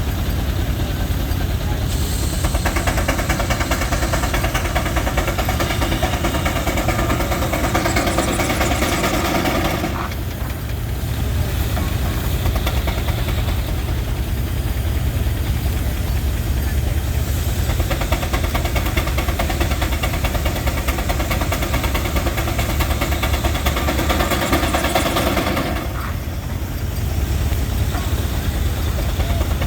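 Circular sawmill, belt-driven by a Frick steam traction engine, making two long cuts of about eight seconds each. The blade's cutting noise rises over the mill's steady low running and drops back between cuts.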